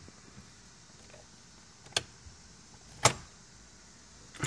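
Sharp clicks from the car's interior controls, the gear selector and ignition key being worked: one about two seconds in, a louder one about a second later, and another near the end.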